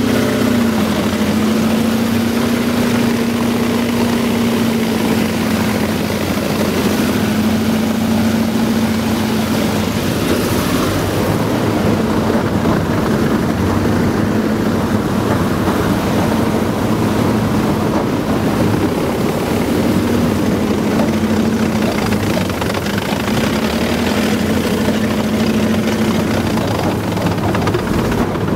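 Engine of a WWII-era Marine LVT amphibious tractor running steadily while the vehicle moves through water: a loud, continuous drone with a hum that wavers slightly in pitch.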